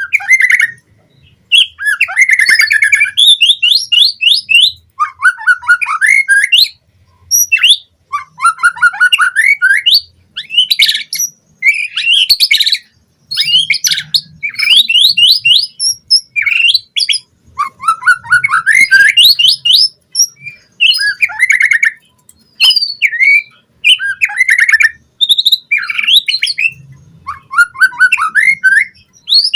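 White-rumped shama (murai batu) singing a fast, varied song: bursts of rapid trills and whistled phrases a second or two long, separated by brief pauses.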